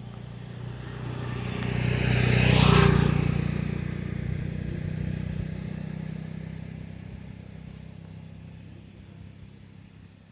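A motor vehicle driving past: engine hum and road noise grow louder to a peak about three seconds in, then slowly fade away.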